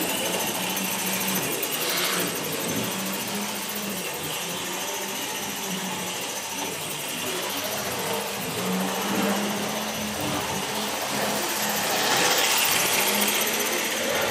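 Non-digital model railway locomotives running on the layout: a steady whir of small electric motors and wheels on track, with a low hum, getting louder for a couple of seconds near the end.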